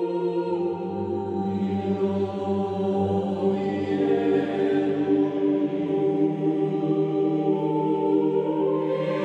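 Slow ambient background music with long held tones, and a low bass note that enters just after the start.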